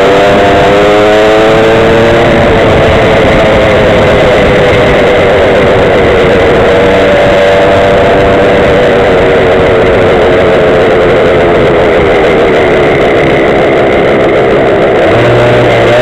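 Small two-stroke Go-ped scooter engines running while riding, their pitches weaving up and down over a loud, steady rush of noise. A lower steady hum joins near the end.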